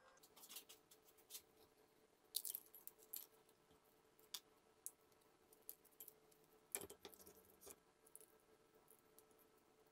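Faint crisp cracks and crackles of a thin, baked fortune cookie being broken apart by hand, with the sharpest snaps about two and a half seconds in and again near seven seconds.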